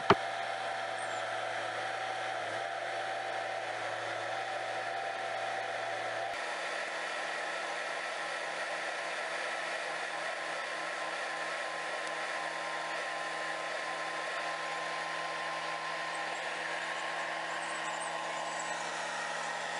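A machine running steadily, with several held tones over a steady noise; the lower tones change abruptly about six seconds in.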